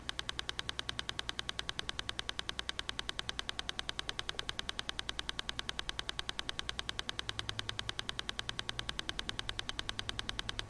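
A fast, perfectly even ticking pulse, several clicks a second like a quick metronome, with a faint low hum beneath it.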